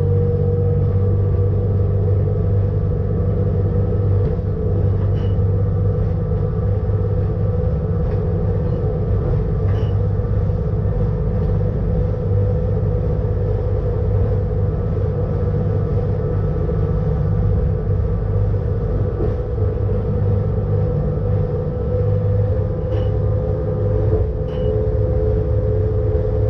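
Electric rack-railway train running downhill, heard from the driver's cab: a steady low hum with a steady whine from the motors and gearing, and a few faint clicks along the way.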